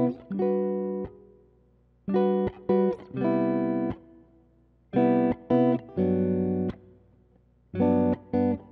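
Background music: a plucked guitar playing a short phrase of a few quick notes ending on a held note, repeated about every three seconds with short pauses between.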